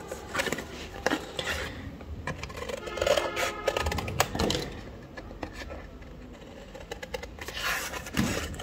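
Scissors cutting through stiff cardboard, a run of short snips and crunching clicks.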